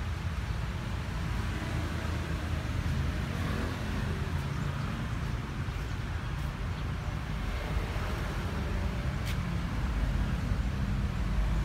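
Ford farm tractor's diesel engine idling steadily with a low rumble, growing a little louder near the end. A single sharp click about nine seconds in.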